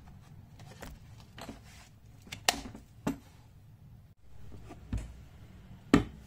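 Hard plastic clicks and knocks as a 12 V slide-on battery pack is fitted to a cordless angle grinder and the tool is handled against its moulded plastic case. There are several separate sharp clicks, the loudest near the end.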